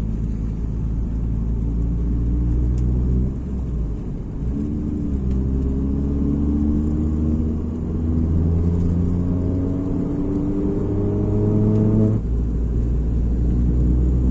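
Vehicle engine and exhaust under acceleration, a low rumble whose pitch climbs slowly, drops about four and a half seconds in and again near the end, then climbs again.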